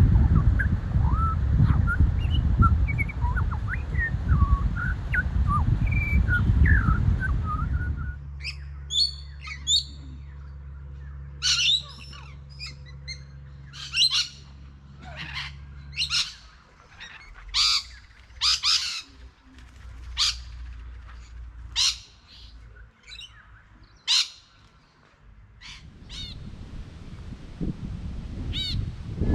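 Wild birds calling. For the first several seconds, small chirps sit over a loud low rumble. After that, a series of sharp, harsh squawks comes about every second or two, with a few falling, whistled calls near the end.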